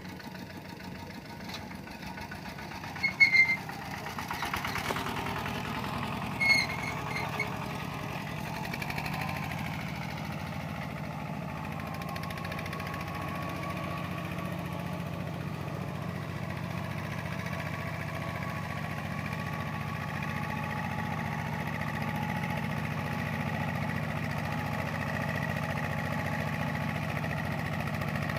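Kubota RT120 single-cylinder diesel engine of a two-wheel walking tractor running steadily while it pulls a trailer through a muddy field. Two brief high chirps sound about three and six seconds in.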